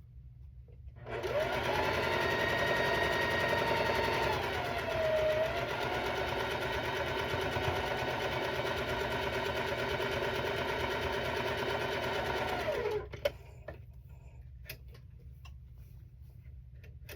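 Electric sewing machine stitching a seam of quilt sashing onto a block. It starts about a second in and runs at a steady speed, with a brief slowing in pitch around four to five seconds. It stops sharply about thirteen seconds in, followed by a few light clicks.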